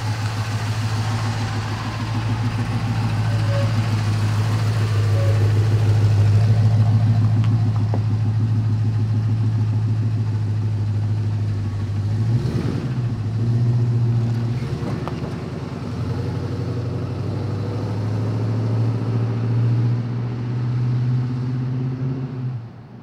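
1987 Jeep J10's AMC 360 V8 running steadily as the truck pulls away and drives off, its engine note dipping and rising briefly about halfway through.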